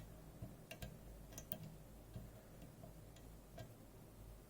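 A handful of faint, irregularly spaced ticks and clicks from a flag lock pick working the side pins of a JPM Surf sidebar lock under tension.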